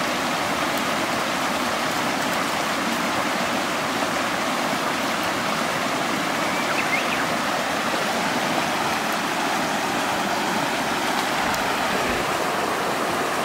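Shallow mountain stream flowing over rocks and gravel: a steady rushing of water.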